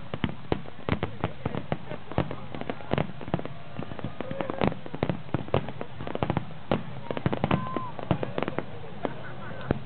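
Fireworks bursting overhead in quick, irregular succession: many sharp bangs and crackles, several a second at times, with a few short gaps.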